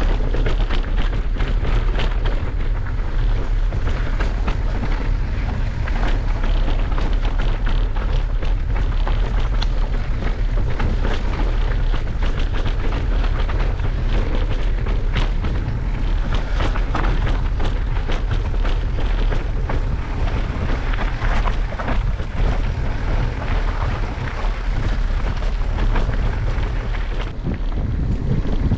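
Wind rumbling on the microphone over a constant clatter of knocks and rattles from a mountain bike riding fast over rough trail.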